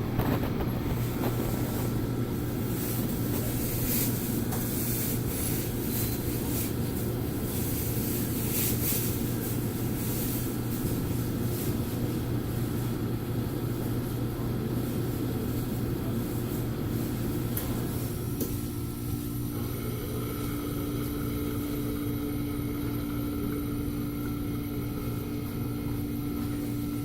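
Steady low hum of restaurant machinery over a background din. A second, higher steady tone joins about two-thirds of the way through.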